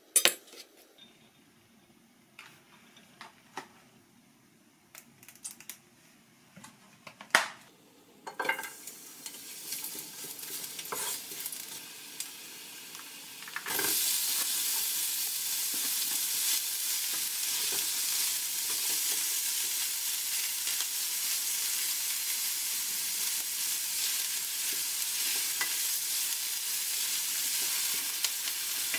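A few sharp knocks of a knife on a wooden cutting board. About halfway through, ground meat is tipped into a hot frying pan and starts sizzling loudly, then keeps frying steadily as it is stirred with a wooden spatula.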